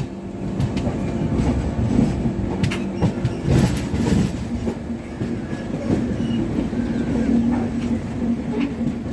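Passenger express train running on the rails: a steady low rumble with a constant hum and a few brief clicks from the wheels.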